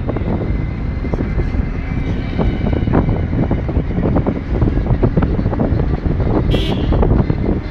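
Wind rushing and buffeting on the microphone of a camera held out of a moving car, over steady road and engine noise. A brief sharp high sound comes about six and a half seconds in.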